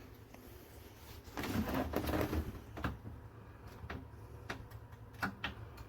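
Handling noises in a small room: a short scraping rustle, then a series of separate sharp clicks and knocks, over a low steady hum.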